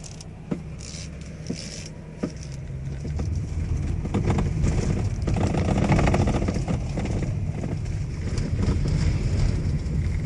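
Toyota MPV's electric power steering giving about four sharp knocks in the first two seconds as the wheel is turned: the 'kok kok' of wear clearance in the steering rack or intermediate shaft coupling. The van's road and engine noise then rises and stays loud as it drives on.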